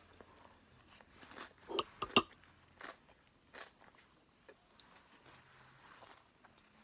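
Someone chewing Frito Scoops corn chips (with chili) in their mouth: crisp crunches, a cluster of the loudest about two seconds in, then softer, scattered crunching.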